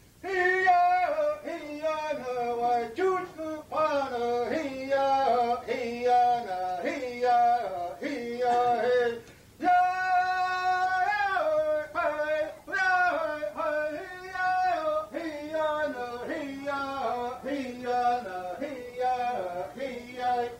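Men and women singing a song together without instruments, in short melodic phrases with one long held note about halfway through.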